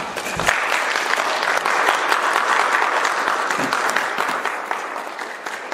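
Audience clapping hands in steady applause, a dense patter of many claps that eases slightly near the end.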